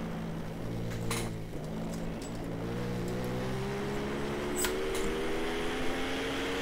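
Several racing sportbike engines running at high revs, heard trackside, their pitch rising slowly as the bikes accelerate through the second half.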